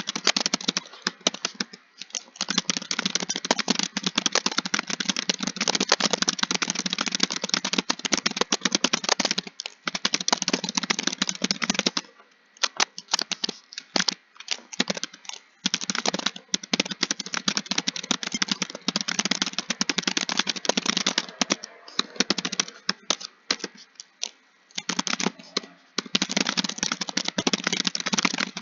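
Computer keyboard typing: long runs of rapid keystrokes broken by short pauses every few seconds.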